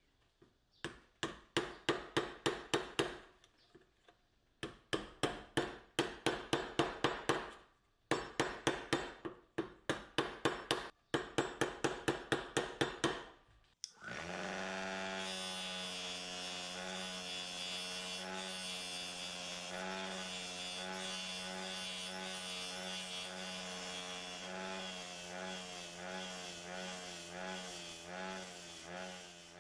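Hammer tapping rapidly on a metal impact-driver nose cone slipped over a pipe in a vise, in four ringing bursts of about five strikes a second. About halfway through, a bench grinder takes over, its spinning wheel running steadily as the metal part is pressed against it.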